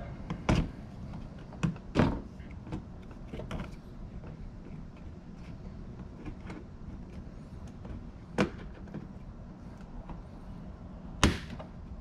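Scattered sharp plastic clicks and knocks as a plastic trim-clip removal tool pries at stubborn push-in retaining clips in a Nissan 350Z's plastic front wheel-well liner, the loudest about two seconds in and near the end.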